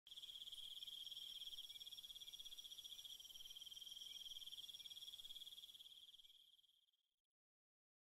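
Crickets trilling in an even, rapidly pulsing high note, faint, fading out about six to seven seconds in.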